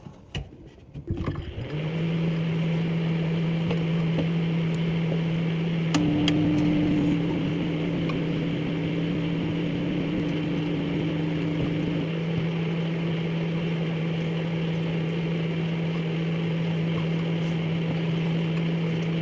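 Microwave oven switched on and running with a steady hum, a few clicks near the start as it is set going. A second, slightly higher hum tone joins for several seconds about six seconds in.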